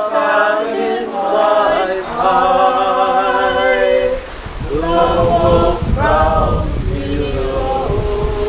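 Unaccompanied group singing of a folk song, led by a woman and a man with other voices joining in, in long held notes.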